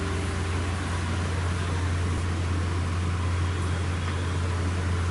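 Steady rushing background noise with a strong, even low hum and no distinct events.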